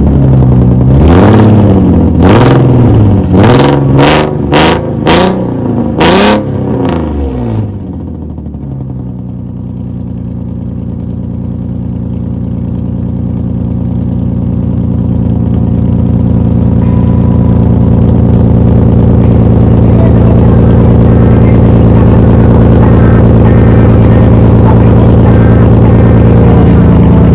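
Infiniti G35's V6 engine revved hard in about seven quick blips, each rising and falling in pitch with a sharp crack at the top of several, then held at a steady note that slowly grows louder.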